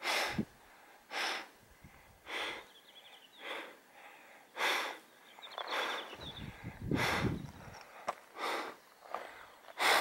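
A hiker breathing hard into the camera microphone, a loud breath about every second. There is a low rumble about six to seven seconds in.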